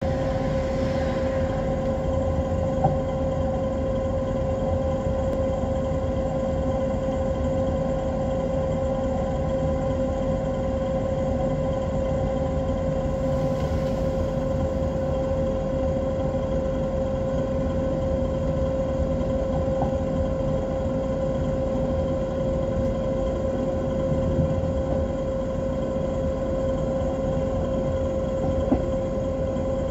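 Steady running noise of a train moving along the track, heard from inside the leading cab: a constant low rumble with a steady hum over it and a few faint clicks.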